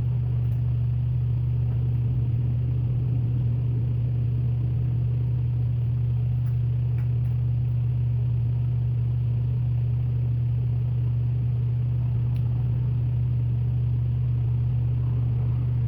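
A steady low hum, unchanging throughout, with a few faint clicks.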